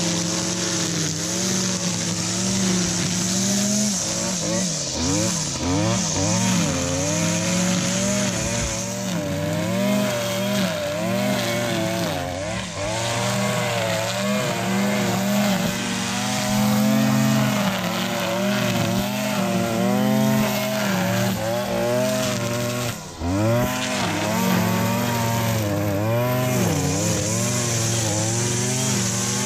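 Gas-powered string trimmer running under load, its engine pitch wavering up and down as the line cuts through tall grass and weeds, steadier near the start and end, with a brief dip in revs about three quarters of the way through.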